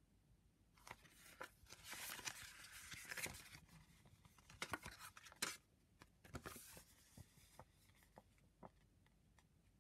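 Folded glossy paper CD booklet rustling and crinkling as it is unfolded by hand, with many small clicks and snaps of the paper. It starts about a second in, is busiest in the first half, and thins to scattered light ticks near the end.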